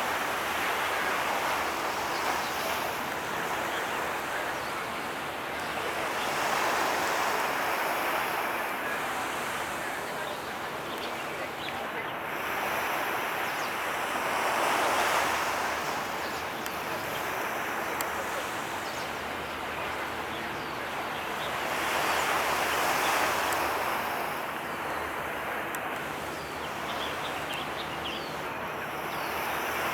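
Waves washing in, the noise swelling and ebbing in slow surges about every seven seconds, with wind over the water.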